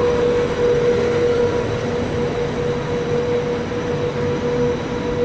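Trenitalia Intercity passenger coaches rolling past along the platform: a steady rumble of wheels on rail with a constant whining tone throughout.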